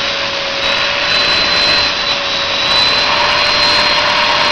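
Vacuum cleaner running steadily, sucking the air out of a large plastic bag to vacuum-seal it. A constant hiss with a steady, even whine.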